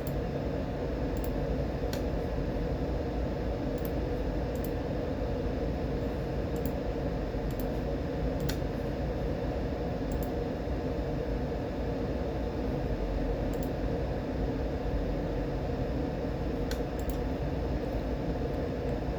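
Steady mechanical hum, fan-like, with a few faint short clicks.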